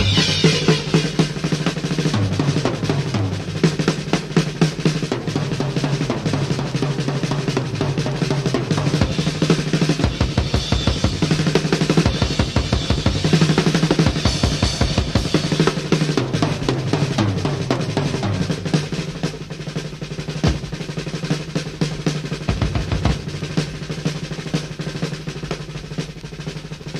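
Rock drum kit played hard in a 1971 blues-rock recording: rapid snare rolls and bass-drum hits over a sustained low bass note, with the busiest run of rolls in the middle. The playing gets quieter over the last few seconds.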